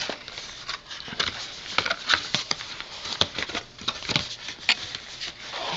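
Hands opening a small cardboard box: a run of small, irregular taps, scrapes and flicks of the cardboard and its flap.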